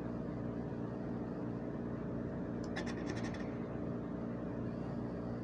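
A scratch-off lottery ticket's coating scraped off with a hand-held scratcher tool: a quick run of short scratching strokes about three seconds in, lasting under a second, over a steady low hum.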